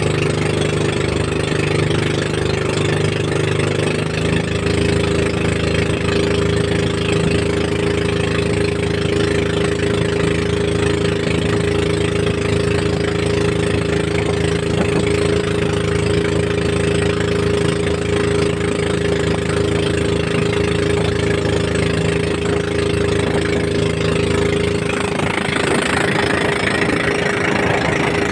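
Outrigger fishing boat's engine running steadily under way, its tone shifting slightly about four seconds in. Near the end a rushing hiss of water or wind grows louder over it.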